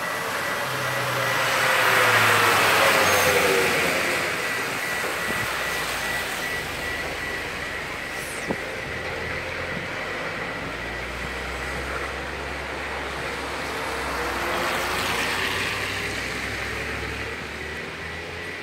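Street traffic on a wet road: one vehicle passes close by about two seconds in, and another passes around fifteen seconds in, over a steady background of traffic noise.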